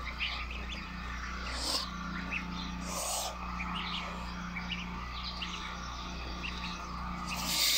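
Domestic goslings peeping continually in short high chirps while feeding. A few short bursts of hiss break in, the loudest near the end.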